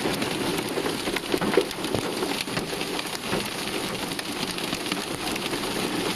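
Heavy hail and rain pelting down: a dense, steady hiss packed with sharp ticks of hailstones striking.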